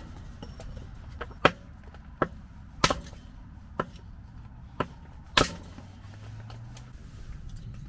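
A blade chopping into wood: about seven sharp blows at uneven intervals, the strongest about a second and a half in, near three seconds and near five and a half seconds, then the chopping stops.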